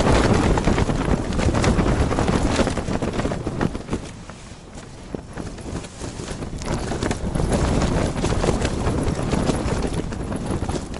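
Strong wind buffeting an ice-fishing tent, its fabric flapping and crackling in rapid irregular strokes. The gusts ease about four seconds in, then build again.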